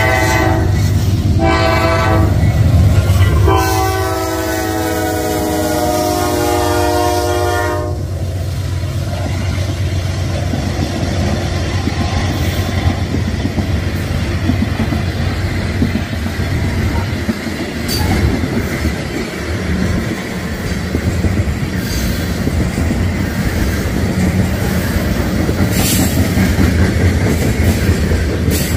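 Kansas City Southern freight train's locomotive horn sounding a grade-crossing warning in separate blasts, the last a long one that cuts off about eight seconds in. Then the train rolls past in a steady rumble with occasional clicks of wheels over rail joints.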